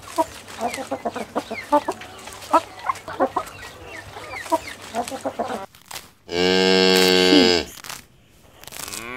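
Chickens clucking with short, scattered calls for about the first five seconds, then a cow mooing once, a long, loud call lasting about a second and a half.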